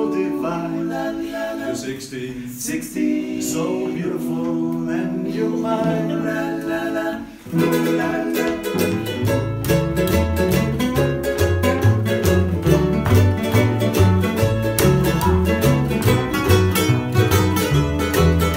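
Male voices singing in harmony without accompaniment, holding long notes. About seven and a half seconds in, an unamplified acoustic band comes in: strummed acoustic guitar, ukulele and mandolin over a plucked double bass.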